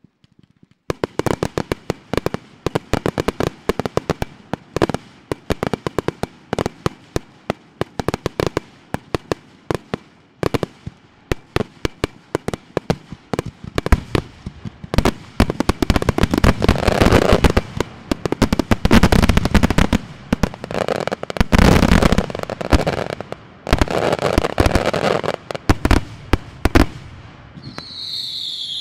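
Large fireworks display: quick sharp bangs and crackles, several a second, starting about a second in and thickening into a dense crackle with heavier booms in the second half. Near the end a whistling firework gives a falling whistle.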